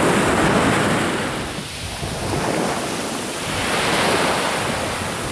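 Ocean surf breaking and washing up a sandy beach, a steady rush that swells twice, with some wind on the microphone.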